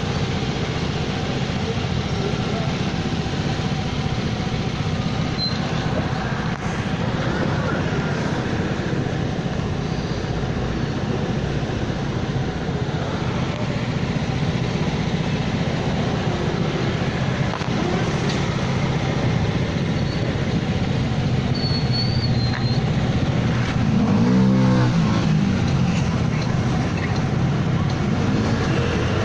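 Steady street-traffic noise from motor scooters and cars, with a heavy low rumble throughout. About 24 seconds in, a brief wavering low tone stands out over it.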